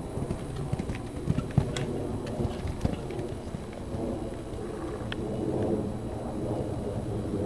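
Dull hoofbeats of a horse cantering on a sand arena, with a few sharper knocks, under a steady low rumble of wind on the microphone.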